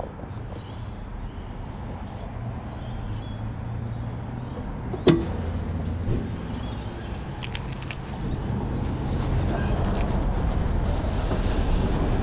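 Steady low rumble of car engines and traffic on a petrol station forecourt, growing louder in the second half. A single sharp clack about five seconds in, with a softer knock a second later.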